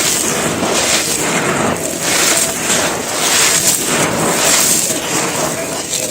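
Dry, gritty handmade cement pieces being crushed and crumbled by hand: a dense, continuous crunching and grinding that swells and eases about once a second as they are squeezed.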